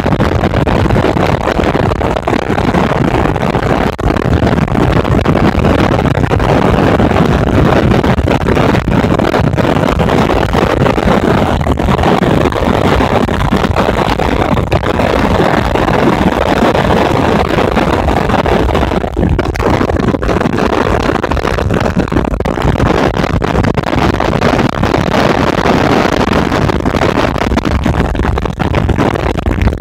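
Motorcycle running at road speed on a gravel road, mixed with heavy wind noise on the microphone and tyre rumble; a loud, steady roar throughout.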